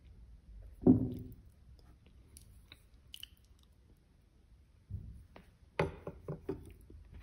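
Close-miked eating of soft zefir (marshmallow) with jam and chocolate crumbs. There is one loud bite about a second in, then quiet chewing. A cluster of sharp wet mouth clicks and smacks comes around the sixth second.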